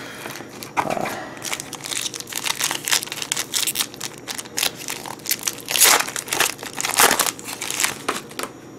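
Foil wrapper of a Yu-Gi-Oh! booster pack crinkling as it is torn open and handled, in irregular crackles with the loudest bursts about six and seven seconds in.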